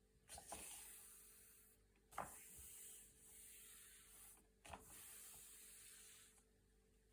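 Thick, glossy magazine-style pages being turned by hand: three crisp paper snaps, each followed by a soft sliding rustle, and a quieter lull near the end.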